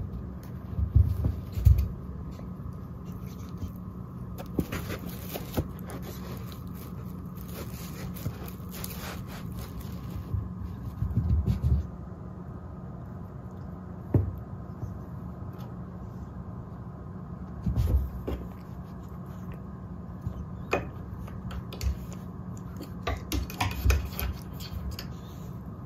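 A cat's paws thumping and scrabbling on a rug as it pounces and bats at a feather wand toy: scattered soft thumps and short scrapes, with a cluster near the end, over a steady low hum.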